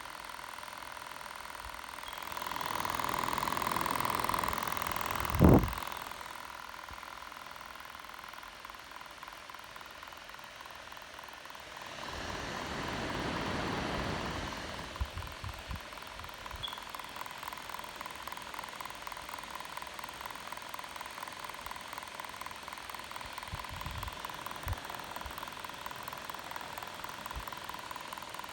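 Dell XPS 17 9700 laptop's GPU cooling fan running with a steady whine and a fast clicking. The click persists even with a newly replaced fan. The fan's rushing swells twice, and a sharp thump sounds about five seconds in.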